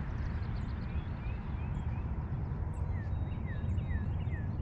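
A steady low rumble of wind on the microphone, with a bird chirping over it in a run of short sliding notes, about three a second in the second half.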